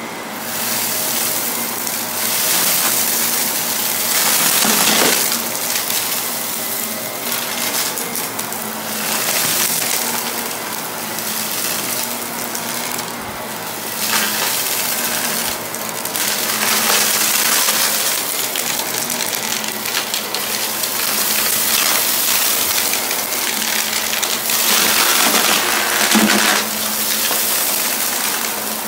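Vacuum cleaner running over carpet with a steady motor hum, picking up dirt and debris that rattle and crackle through it.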